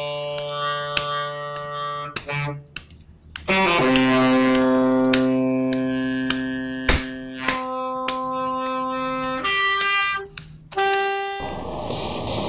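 Music of held, reedy notes that change every second or two, with a few clicks. About eleven seconds in it cuts off and a steady rushing of air takes over, from an electric blower pushing air through a PVC pipe into a plastic bag.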